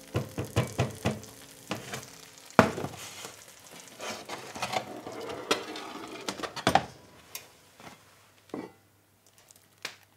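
Spatula stirring risotto rice in a frying pan: quick scraping strokes and taps against the pan, with a sharper knock about two and a half seconds in. The strokes thin out to a few faint knocks near the end.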